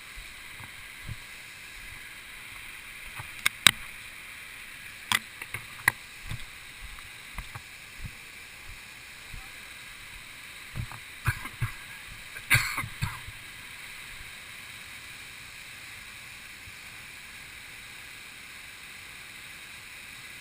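Steady rush of running water, with scattered sharp clicks and knocks: a few in the first third and a tight cluster about two-thirds of the way through, among soft low thumps.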